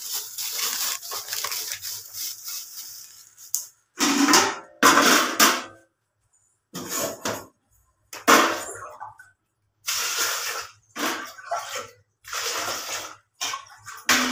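A plastic bag crinkling with a steady hiss as white urad dal is tipped from it into a plastic bucket. From about four seconds in come six or so separate pours of water, each about a second long, scooped with a steel bowl and splashed into the bucket to wash the dal.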